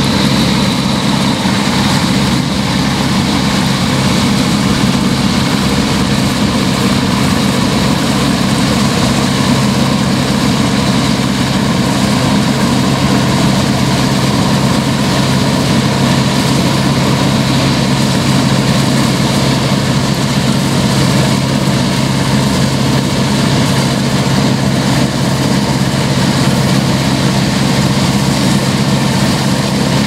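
Massey Ferguson 640 combine harvester running steadily while cutting wheat: a constant engine drone with its harvesting machinery working, unchanging in level.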